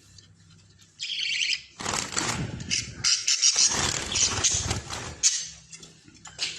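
Parrot chicks chirping and squawking while being handled, starting about a second in after a near-quiet moment, with handling rustle mixed in.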